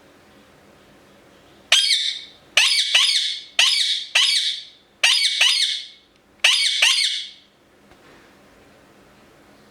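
Indian ringneck parakeet screeching: about nine loud, shrill calls, mostly in quick pairs, each dropping in pitch, over about six seconds.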